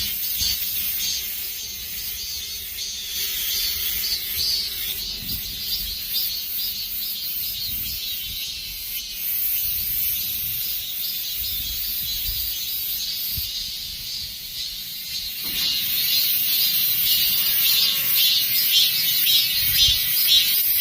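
A chorus of many cicadas buzzing in the trees: a dense, steady, high-pitched drone. It gets louder about 15 seconds in.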